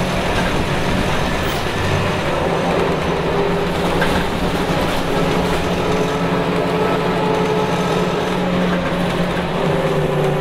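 Scania K280UB city bus under way, heard from inside the passenger cabin: its rear-mounted 9.3-litre inline five-cylinder turbo diesel (Scania DC9) pulls steadily over road noise.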